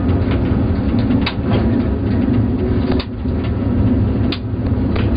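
FIAT 7131 diesel railcar running, a steady low engine drone heard from inside the cab, with a few sharp clacks about a second and a half apart.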